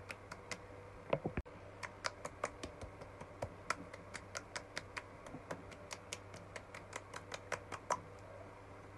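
Open palms lightly slapping the cheeks in quick succession, a fast series of soft smacks at about four or five a second, stopping about eight seconds in.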